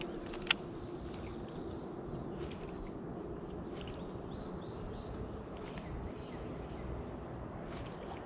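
Steady high-pitched drone of insects with a series of short bird chirps over it, and one sharp click about half a second in.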